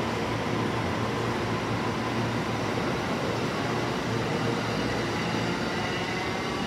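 Electric train running at a station platform: a steady rumble with a hum and faint whining tones, one rising slightly near the end.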